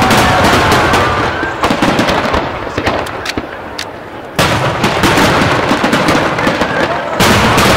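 Aerial fireworks display, a dense run of bangs and crackling bursts. It eases off about three seconds in, then a heavy volley starts suddenly about four and a half seconds in.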